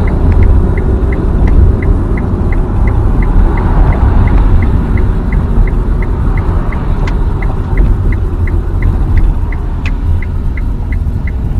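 Road and tyre rumble inside the cabin of a Nissan Leaf driving along, with no engine note because the car is electric. A faint, steady ticking runs over it at about three or four ticks a second.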